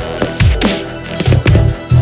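Electronic dance music with a heavy beat and deep bass notes that slide down in pitch on each hit.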